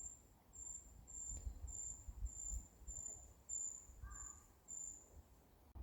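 A small bird giving a regular series of very thin, high-pitched call notes, about nine of them, one every half second or so, over a faint low rumble.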